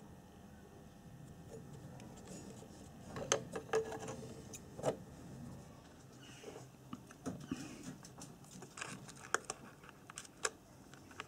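Faint, scattered clicks and light taps of small parts being handled on a workbench: a cluster about three to five seconds in and another near the end.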